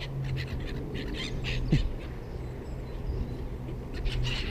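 Birds calling: a quick run of short, high calls in the first two seconds and more near the end, over a steady low hum.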